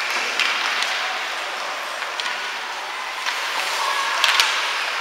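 Ice hockey rink sound during play: a steady scraping hiss of skates on the ice, with a few sharp clicks of sticks and puck, the loudest about four seconds in.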